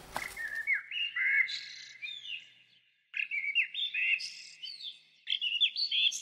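Songbird singing in three phrases of quick, sweeping chirps, each about two seconds long with brief silent gaps between them.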